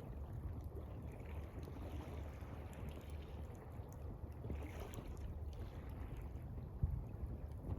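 Water lapping gently in soft swells over a steady low rumble, with faint, scattered crackles from a campfire and one sharper knock near the end.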